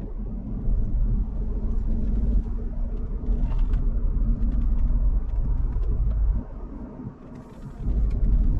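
Car on the move: a steady low rumble of engine and road noise, easing off for a second or so near the end.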